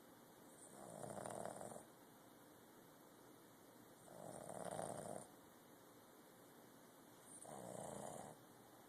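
Puppy snoring in its sleep: three snores, each about a second long and roughly three seconds apart.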